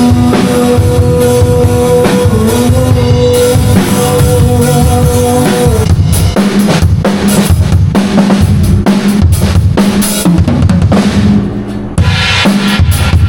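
Rock music led by a drum kit: held notes ring over the drums for about the first six seconds, then a steady beat of bass drum and snare carries on, with a brief drop near the end.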